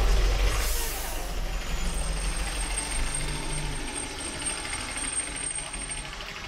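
Street traffic, with a heavy vehicle's low engine rumble loudest at the start and easing off, a short hiss about a second in, and a thin high whine through the middle.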